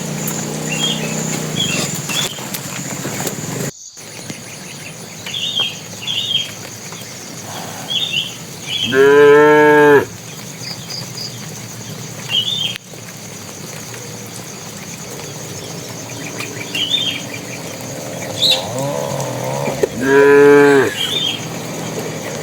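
Cattle mooing: two long, loud calls about eleven seconds apart.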